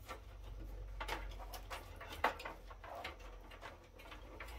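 Cables and connectors being handled inside an open computer server case: a few short clicks and rustles, the sharpest a little past two seconds in, over a low steady hum.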